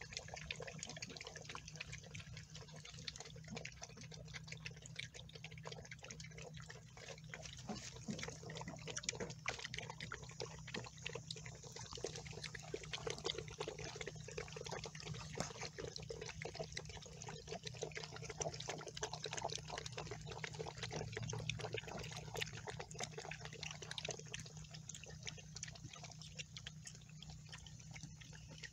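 Litter of pitbull puppies eating together from one bowl of kibble: a dense, continuous run of small wet smacking, lapping and crunching clicks.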